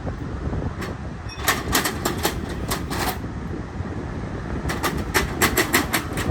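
Accordion shutter rattling and clicking along its track as it is slid, in two runs of rapid clatter, over steady wind noise.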